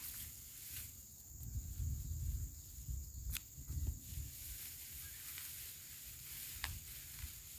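Rustling and crackling of lemongrass stalks being pulled apart by gloved hands, with a few sharp clicks, over a steady high insect drone. Low rumbling is loudest from about one to four seconds in.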